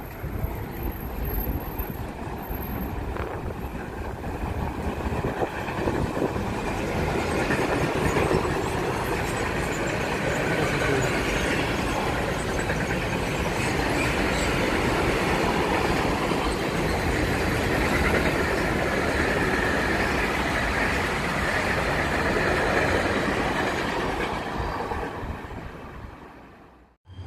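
Freight train of covered wagons rolling through a station, a steady rumble of wheels on rails. It builds over the first several seconds, holds, then fades away near the end.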